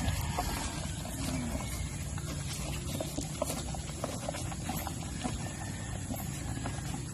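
Cow licking and slurping the last of a feed-and-water mash from the bottom of a plastic bucket: a steady run of small wet clicks and smacks.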